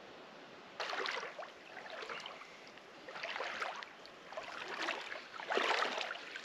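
Water sloshing and splashing around a wader's legs as he moves and steps in shallow river water, in several uneven bursts beginning about a second in and growing louder near the end.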